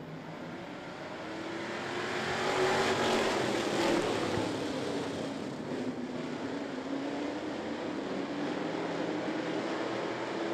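A pack of dirt-track classic race cars running together at racing speed, their engines' sound swelling over the first few seconds as the field comes by. The engine pitch rises and falls as the cars lift and get back on the throttle through the turns.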